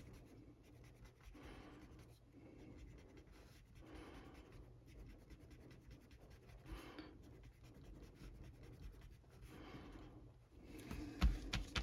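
An eraser rubbing on a comic book's paper cover in faint, repeated strokes, roughly one a second, to lift grime. A few sharp clicks or taps come near the end.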